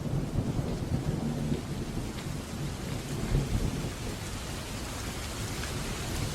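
Steady rain falling, an even hiss with scattered drop ticks, under a low rumble that swells about three seconds in and then eases.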